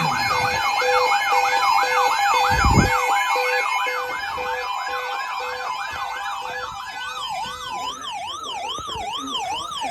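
Electronic emergency-vehicle siren sweeping rapidly up and down in pitch, about two and a half sweeps a second, over a pulsing steady tone; about seven seconds in the pattern changes to a slightly slower sweep with a second, higher-pitched sweep above it. A short low thump sounds near three seconds in.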